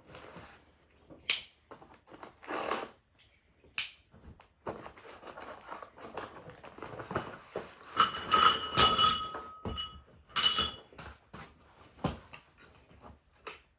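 A small box being opened and rummaged through, with rustling and scattered taps, then small metal tree-step brackets clinking against each other in several bursts from about eight seconds in.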